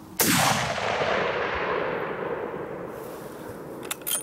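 A single .300 Win Mag rifle shot, followed by its echo rolling away and fading over about three seconds. A few sharp clicks come near the end.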